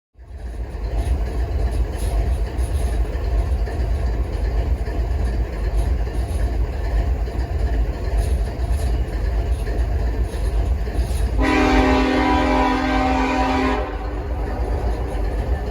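Train rumbling by, with one locomotive horn blast of a couple of seconds about eleven seconds in.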